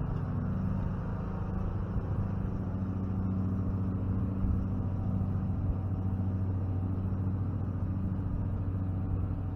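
A steady low hum of a motor or engine running at an even speed.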